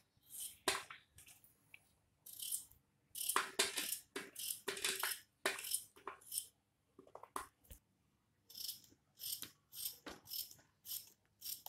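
Kitchen knife cutting a peeled raw potato into chunks, the blade tapping on the plate beneath in a string of short, irregular cuts, with a pause of about a second a little past the middle.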